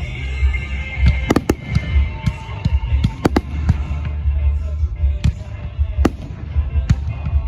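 Fireworks bursting overhead, with sharp bangs and pops every second or so, over music playing from a public-address sound system, with a constant low rumble underneath.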